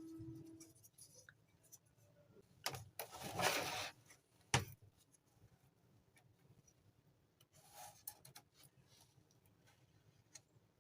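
Small objects being handled: scattered light clicks and taps, a brief rustling scrape about three seconds in and a sharp knock just after.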